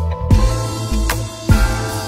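Background music with a steady beat: bass, drums and guitar.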